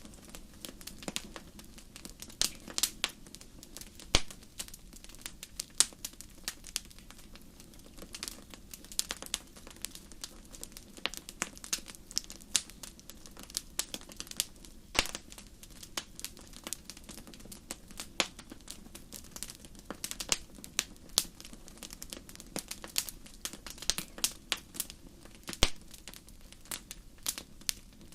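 Steady crackling ambience: irregular sharp ticks, several a second, over a soft low hum.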